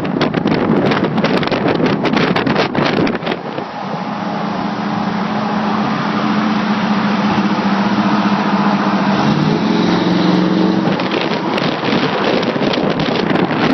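Wind buffeting the microphone at highway speed, giving way to the steady exhaust note of a lowered Chevrolet C-10 pickup cruising alongside. The pitch of the exhaust note shifts near ten seconds, and the wind buffeting returns near the end.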